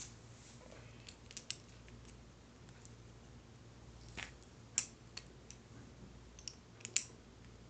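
Light scattered clicks and taps of small plastic and metal Beyblade spinning-top parts being handled and fitted together, with sharper clicks about four, five and seven seconds in, over a faint steady low hum.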